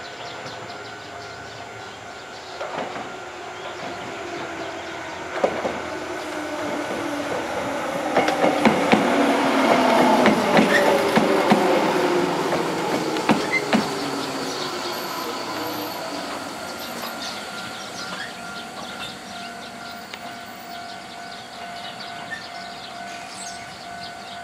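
Shizuoka Railway 1000 series electric train pulling into a station: wheels clacking over rail joints and a motor whine falling in pitch as it brakes. Loudest about ten seconds in as it passes close, then easing off as it slows to a stop.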